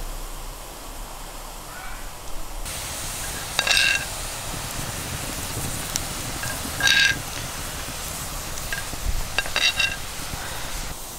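A metal spoon stirring a steaming pot of boiling liquid over a wood fire, clinking against the metal pot a few times with short ringing notes over a steady hiss.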